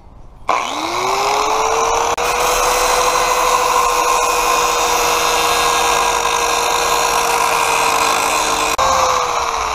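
Corded angle grinder with an abrasive disc spinning up about half a second in, its whine climbing and then holding steady. It then grinds the steel cutting edge of a lawn mower blade to sharpen it, a harsh grinding hiss under the whine. Near the end the disc comes off the work and the whine starts to fall.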